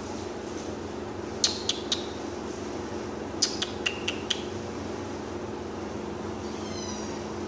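Thin plastic bag crackling as a cat moves inside it: a few sharp crackles in two short clusters over a steady background hum.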